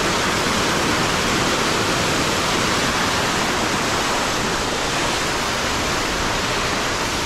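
Small waterfall cascading down a rock face: a steady, loud rush of water.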